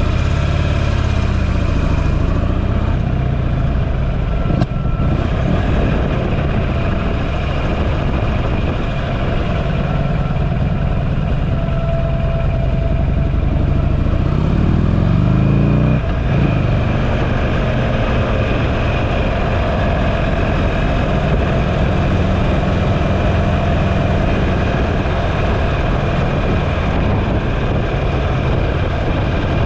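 Buell motorcycle engine running while riding. Its pitch dips and comes back up in the first couple of seconds, and it climbs steeply as the bike accelerates about halfway through before settling again.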